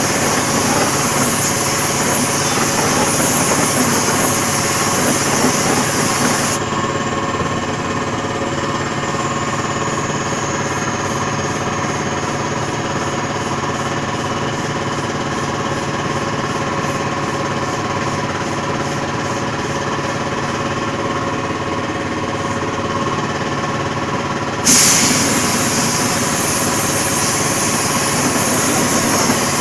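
Air compressor running steadily while silver chrome is sprayed onto a steel wheel with an air spray gun. The hiss of the spray gun cuts off after about six seconds and comes back suddenly near the end.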